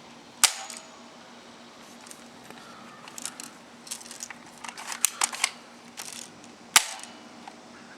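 Cheap plastic spring airsoft M16A4 rifle being worked: two sharp snaps of its mechanism, about half a second in and near the end, with small plastic clicks and rattles of handling in between.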